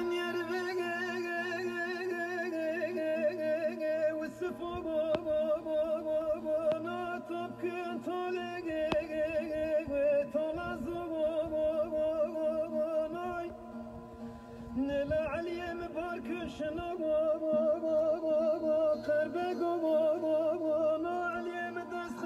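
Music with singing: a wavering, ornamented sung melody over a steady held note, with a short break in the voice about two-thirds of the way through.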